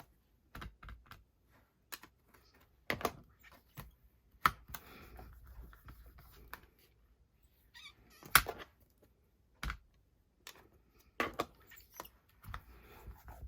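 A craft stamp being tapped on an ink pad and pressed onto paper, with handling of the stamp and block on the table: a string of separate knocks and clicks, the loudest about four and a half and eight and a half seconds in.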